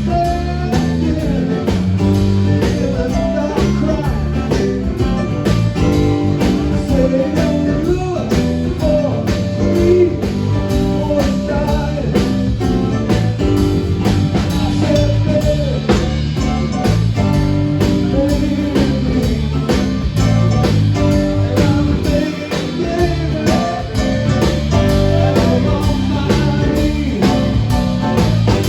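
Blues-rock music with guitar and a drum kit keeping a steady beat, and a singing voice.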